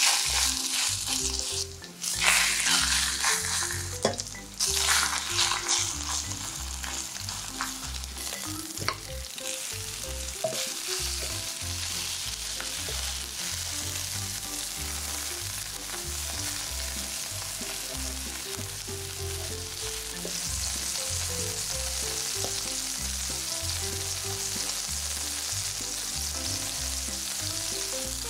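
Egg-battered shrimp skewers sizzling as they fry in oil in a non-stick pan. The sizzle is loudest in the first few seconds, as the pieces go into the hot oil, with a few sharp clicks, then settles to a steady frying hiss.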